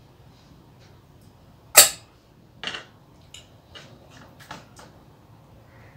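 A small brass bowl set down against another metal bowl with a sharp metallic clink about two seconds in, then a softer clink with a short ring. A few light wet clicks follow as fingers mix rice and curry on a metal plate.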